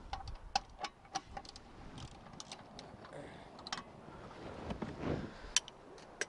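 Irregular sharp metal clicks and clinks from a hand wrench snugging the rear brake caliper carrier bolts, which are not yet torqued.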